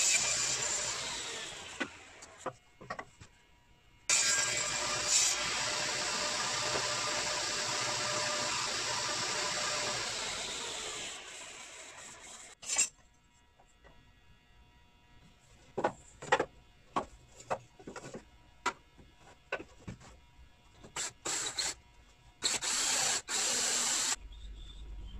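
Table saw cutting mitres in wooden picture-frame moulding on a mitre sled. The blade spins down in the first couple of seconds, a second run starts sharply about four seconds in and winds down around the middle, and then the moulding pieces knock and clatter on the saw table.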